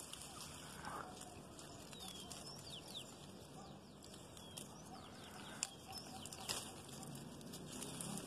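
Birds chirping faintly, with a few light snaps and rustles in the tree's branches as a dry stalk hooked into them is tugged.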